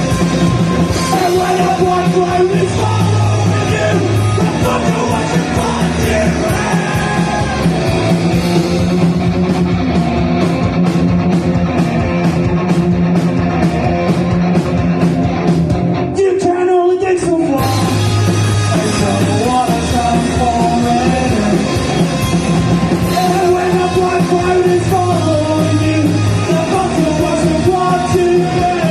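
Rock band playing live with a singer, loud and dense throughout. About halfway through the band drops out briefly, then crashes back in.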